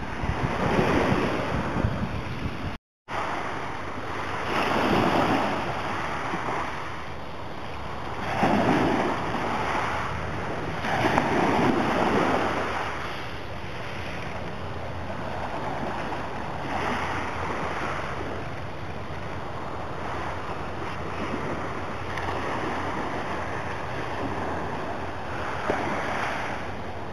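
Small sea waves breaking and washing up a pebble-and-sand beach, swelling every few seconds, with wind buffeting the microphone. The sound drops out completely for a moment about three seconds in.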